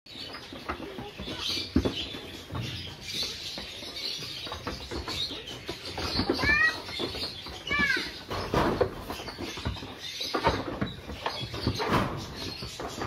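Young Karnataka sheep jostling in a pen with a wooden plank floor: hooves knocking and clattering irregularly on the boards as they shove each other. Two short high chirps sound about six and a half and eight seconds in.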